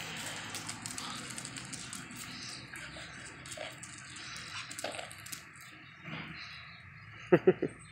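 Whippets playing: faint scattered clicks and scuffling, then three quick, loud yaps from a dog near the end.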